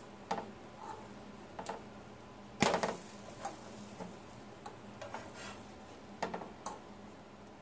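Slotted metal spatula and fork clicking and scraping against a griddle pan while pancakes are turned over: a scatter of light clicks, with one louder clatter about two and a half seconds in.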